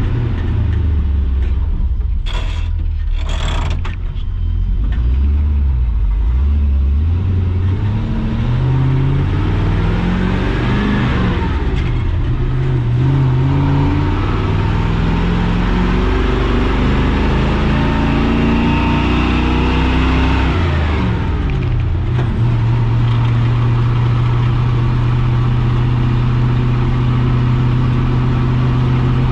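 Chevy K30's 6.0 Vortec V8 pulling a heavy trailer up a hill with a four-speed manual: the engine revs climb, drop at a shift about 12 seconds in, climb again, drop at another shift around 21 seconds, then hold steady. Two short noisy bursts come a few seconds in.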